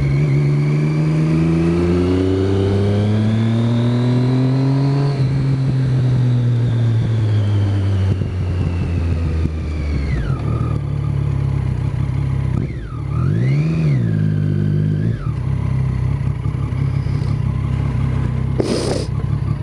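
Triumph motorcycle engine pulling up through the revs for about five seconds, then easing off as the pitch falls. About two-thirds of the way through, a quick rev dips, rises and drops back, then the engine holds a steady lower note. A short sharp knock comes near the end.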